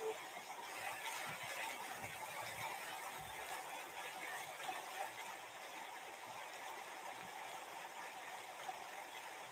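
Quiet room hiss with faint, soft handling noises as a book or reading device is held and moved in the lap.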